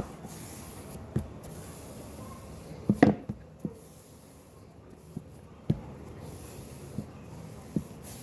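Pancakes frying in hot oil with a steady sizzle, and a utensil knocking against the pan now and then, the loudest knock about three seconds in.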